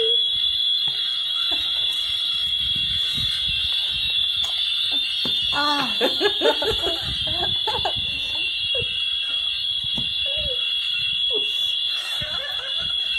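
A steady high-pitched electronic whine, like an alarm tone, holds without a break throughout. About halfway through, a person's voice breaks in with a few short vocal sounds.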